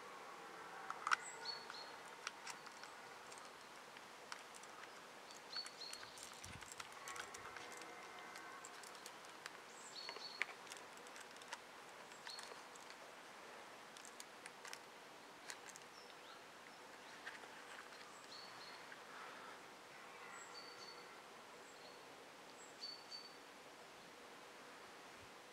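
Quiet outdoor ambience with short, faint bird chirps every few seconds and a few soft clicks.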